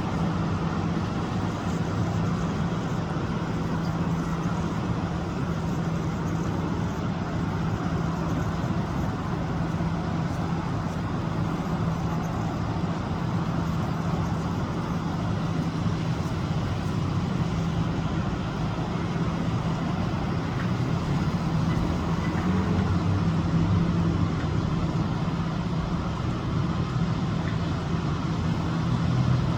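Construction machinery engine running steadily: a continuous drone with a low, even hum and no pauses or impacts.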